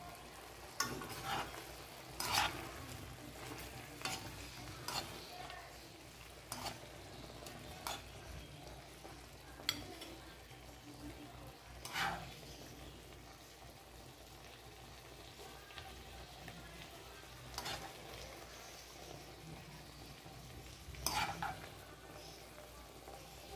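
Faint sizzle of stir-fried vegetables and shrimp in a nonstick wok, broken by sharp, irregular clinks and scrapes of a spoon against the pan and plate, about ten in all.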